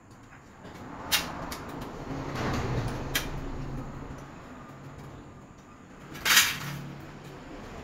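Thin aluminium panel strips being handled and laid in place: a couple of light knocks, a scraping slide about two to three seconds in, and a louder short scrape about six seconds in.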